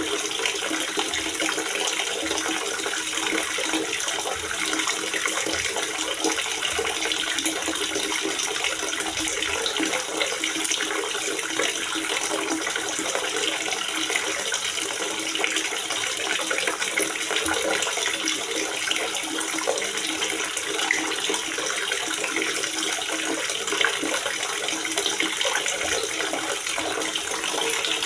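Water gurgling steadily in a water reservoir, an even, unbroken rush.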